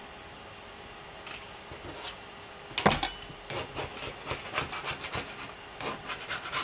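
Flat metal scraper rasping across a textured 3D-printer build sheet in quick repeated strokes, clearing off leftover filament strings, after a sharp click nearly three seconds in.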